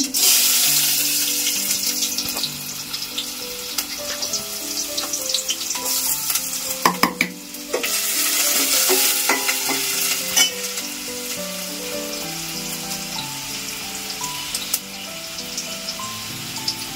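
Chopped onion, curry leaves and garlic cloves dropped into hot oil in a steel pot for a tempering, sizzling at once. A spoon stirs and clinks against the pot, and the sizzle swells again about eight seconds in as the mix is stirred.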